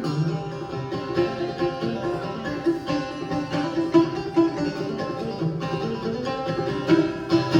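Solo clawhammer banjo playing an old-time instrumental break, a rapid run of picked notes with the strings ringing over a steady drone.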